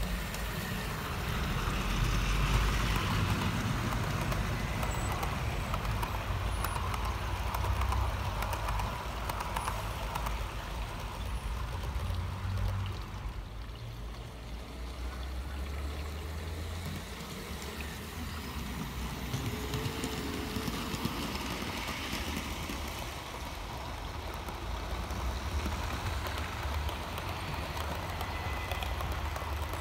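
OO gauge model trains running on an outdoor garden layout: a steady rolling rumble of wheels on track. It eases for a few seconds about halfway, when the track is empty, and rises again as the coaches pass.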